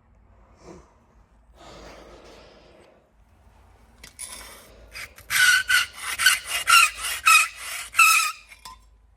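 Hand scraper dragged over old floor polish on wooden boards, in a run of harsh scraping strokes about three a second with a squeaky edge. The strokes start about five seconds in, after a softer rub earlier on.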